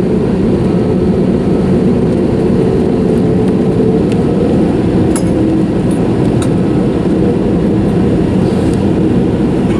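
Steady, loud jet airliner engine and airframe noise with a low hum, and a few faint clicks around the middle.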